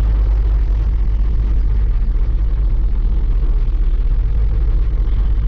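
Steady low rumble of a truck's engine and road noise heard inside the cab while driving at highway speed.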